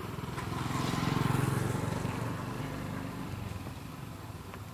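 A motor vehicle's engine passing along the road, swelling to its loudest about a second in and then fading away.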